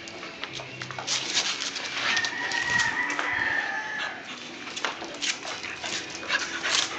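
Dogs scuffling at play on a concrete floor, with many short clicks and scrapes, and a long high-pitched call held for about two seconds near the middle.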